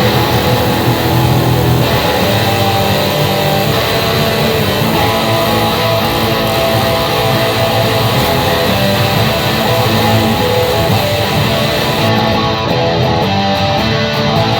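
Intro music: a loud, steady rock track led by guitars, cutting off abruptly at the end.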